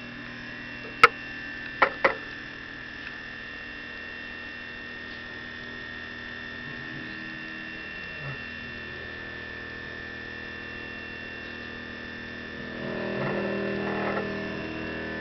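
EMCO PC Mill 125 benchtop CNC mill running on HDPE with a steady high whine. Three sharp clicks come in the first two seconds, and the mill gets louder and rougher near the end.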